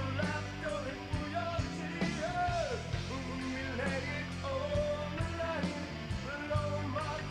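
Rock music with a singer over drums and guitar, with a steady beat.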